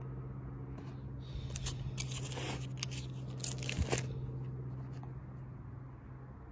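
A plastic sheet-protector page in a ring binder being turned, a crinkling rustle with a few sharp clicks lasting about two and a half seconds, over a steady low hum.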